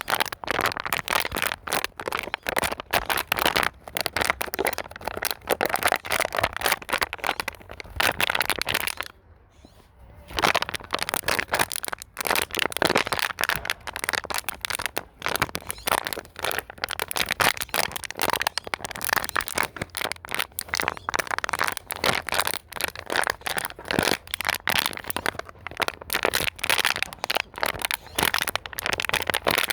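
Plastic bottle being squeezed and crumpled in the hand, a continuous crackling and crinkling made of many sharp cracks, with a brief pause about nine seconds in.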